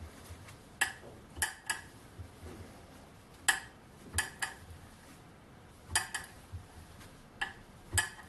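A screw thread being turned by hand in a freshly tapped hole in metal, giving about ten sharp metallic ticks at uneven intervals. The ticking means the thread is a bit on the tight side, since the hole was drilled at 5 mm instead of 5.1 mm.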